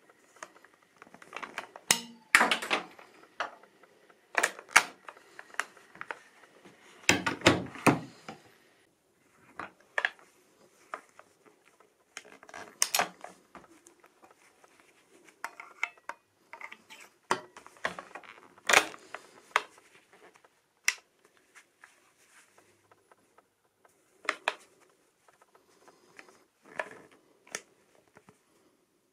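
Metallic clicks and clacks of a Baikal IZh-18 single-barrel break-action shotgun being worked by hand: the breech opened and closed, and the lever and trigger clicking as the striker is decocked. The clicks come singly or in short clusters, the heaviest a clack about seven seconds in.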